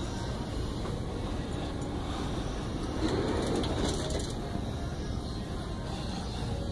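Steady low rumbling noise from a handheld camera being carried while walking, with a louder rustle about three seconds in.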